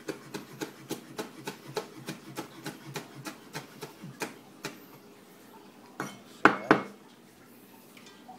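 Cleaver chopping chili peppers finely on a plastic cutting board, quick even strokes at about four a second that stop about five seconds in. Two louder knocks follow about six and a half seconds in.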